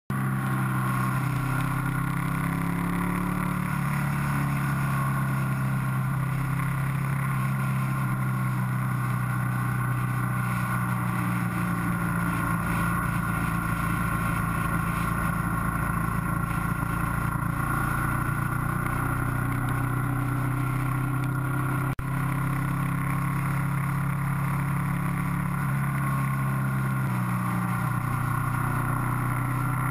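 Motorcycle engine heard from an onboard camera while riding along a road, a steady drone whose pitch shifts up and down a few times as the speed changes. A brief click about two-thirds of the way through.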